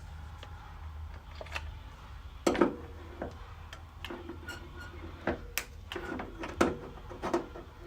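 Scattered metallic clicks and light knocks, a few of them louder with a short ringing tone, from the pull studs welded to a car's quarter panel being handled and bent aside. A low steady hum runs underneath.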